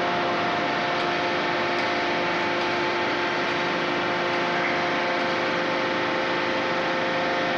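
Steady machinery noise in a forging hall: a constant even rush with a steady hum of several tones on top, without any hammer blows.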